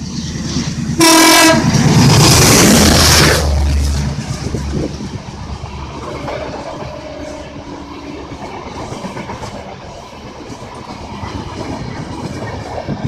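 An Indian Railways WDM3A diesel locomotive gives a short horn blast about a second in and passes at speed with a loud rush and low engine drone. Its train of coaches then runs by with a steady rumble and the clickety-clack of wheels over the rail joints.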